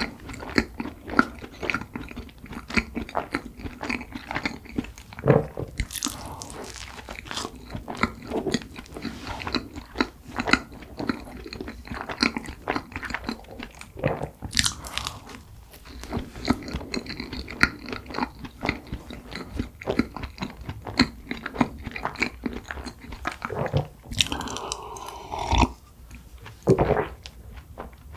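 Close-miked eating of cream-filled red bean buns: biting and chewing with a dense stream of small mouth clicks and smacks.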